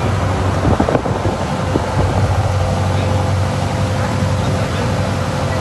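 Motorboat engine running steadily under way, a constant low hum, with the rush of water and wind on the microphone over it.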